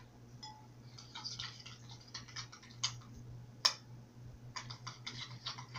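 A metal spoon stirring freshly activated no-glue slime in a glass bowl: faint irregular clicks and taps of the spoon against the glass, with a few sharper ticks midway. A steady low hum runs underneath.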